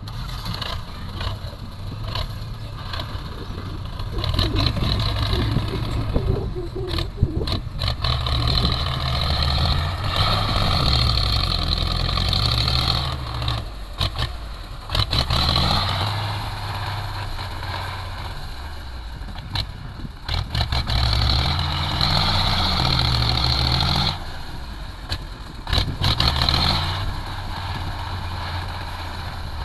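Diesel engine of heavy earthmoving machinery working, its pitch stepping up and down as it comes under load in repeated stretches, with scattered knocks.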